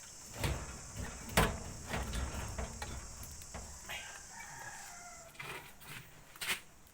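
Sharp metal knocks and clunks as the motorcycle engine and frame parts are pushed and handled, the loudest about a second and a half in. A rooster crows in the background around four to five seconds in, over a steady high insect buzz that stops about five seconds in.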